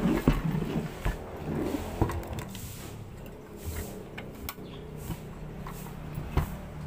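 Metal body of a portable gas stove knocking, scraping and rattling as it is tipped and handled on a table, with scattered clicks; the loudest knocks come near the start.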